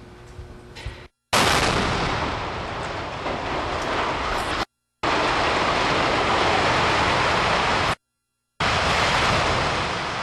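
Demolition implosion of a steel boiler structure: a sudden loud, noisy rush of collapsing steel and debris, about a second in. It comes in three stretches, cut apart by two short dead-silent gaps.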